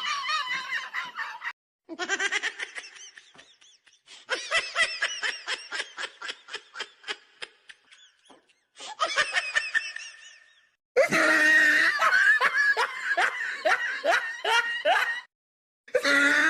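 High-pitched human laughter in several separate bursts, some with quick rhythmic ha-ha pulses, each cut off abruptly into dead silence as if edited together.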